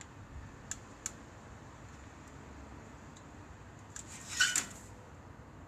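Small tool and component handling sounds while seating and soldering a capacitor onto a circuit board: two light clicks about a second in, then a brief scraping rustle near the end.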